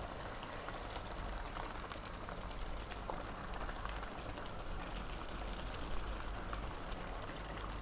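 A pan of misua noodle and vegetable soup simmering on the hob: a steady, faint bubbling with small scattered pops.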